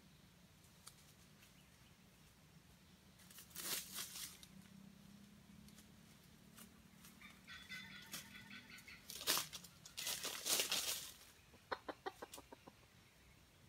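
Red junglefowl clucking, with several loud rustling bursts in the dry leaf litter and a quick run of sharp clucks about twelve seconds in.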